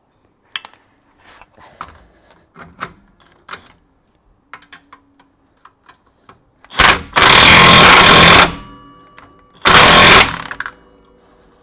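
Cordless impact wrench hammering a bolt tight on the car's rear suspension, in two loud bursts: a long one of nearly two seconds past the middle, then a shorter one a second later. Before them, scattered light clicks and clinks of tools and parts being handled.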